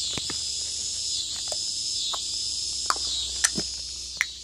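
Steady, high-pitched chorus of insects that swells and fades slowly, with a few short taps over it.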